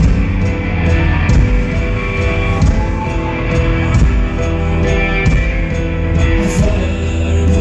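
Live rock band playing an instrumental passage: electric guitar over a heavy low bass, with a steady beat and no vocals.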